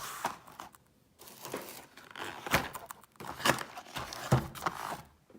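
Hands handling cardboard ammunition boxes and paper: irregular rustling and crinkling, with several sharper knocks in the second half.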